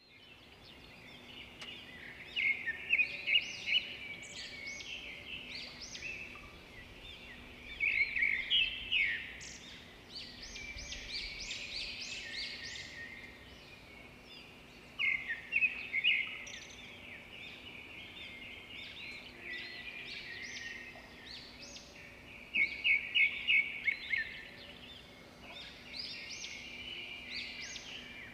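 Birds chirping and singing in short bursts of rapid high notes that come back every six or seven seconds, with scattered single chirps between them, over a faint steady low hum.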